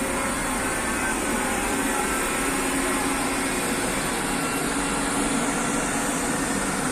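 Engine of a forestry crane machine running steadily, a constant mechanical drone with a steady hum.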